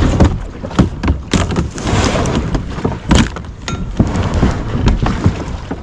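Irregular knocks and thumps, several a second at times, from a kayak and gear being handled as the paddler climbs out at the landing, over a low rumble of wind on the microphone.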